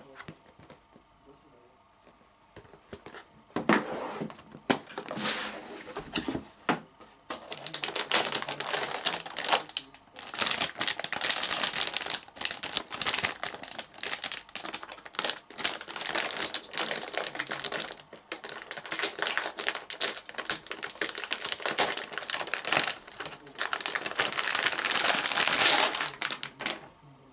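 Cardboard box and packaging handled with knocks and rustles from about three seconds in, then the metallic antistatic bag around a graphics card crinkling steadily as the card is worked out of it, stopping just before the end.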